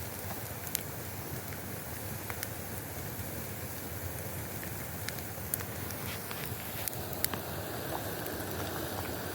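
Wood campfire crackling: a steady rushing noise with scattered sharp pops and snaps.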